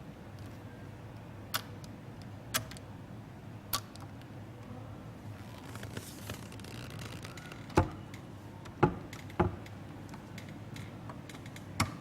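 A series of sharp clicks and knocks, about seven, spaced irregularly, the loudest three bunched in the second half, over a steady low hum.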